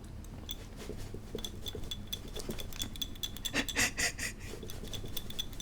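Utensils clicking and clinking rapidly against a bowl as spicy noodles are tossed and mixed, with a few louder wet, sticky sounds about three and a half seconds in.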